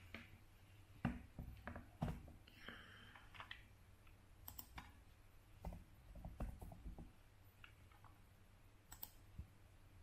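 Faint, scattered clicks and taps from operating a laptop and a handheld phone, with the two sharpest clicks about one and two seconds in and a brief rustle just after. A low steady hum runs underneath.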